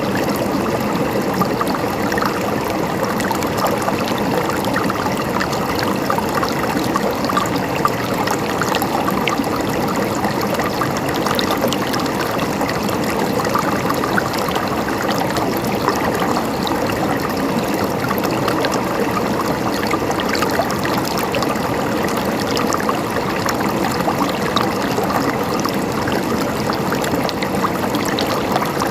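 River water flowing, a steady rush with constant fine bubbling and splashing.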